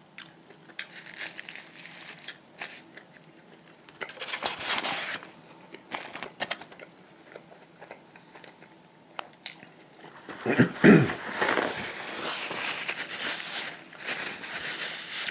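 A person biting into and chewing a large burger close to the microphone, with rustling of its paper wrapper and handling of the foam takeaway box. The busiest, loudest stretch of rustling and bumps comes about two-thirds of the way through.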